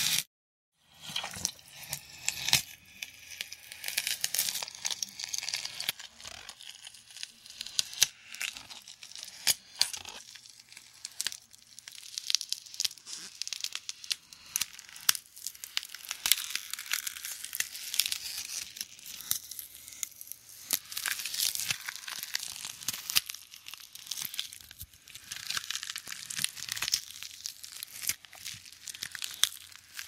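Shape-shifter creature transformation sound effect: a dense, continuous run of crackling, crunching and tearing noises full of sharp clicks. It begins after a brief gap of silence near the start.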